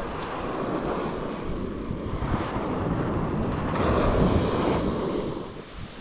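Small ocean waves breaking and washing up the shore, one swelling louder about two-thirds of the way through and then easing off, with wind buffeting the microphone throughout.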